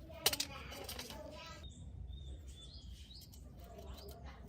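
Two sharp clicks near the start, then small birds chirping faintly in the background in short, sliding high notes.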